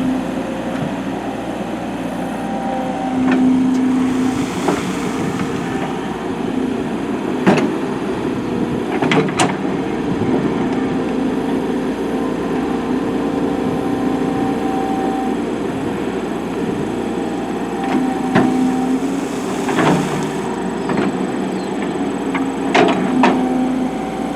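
Excavator's diesel engine running under load while its bucket teeth dig and break up hard lamproite ore, with a few sharp clanks and knocks of rock and steel.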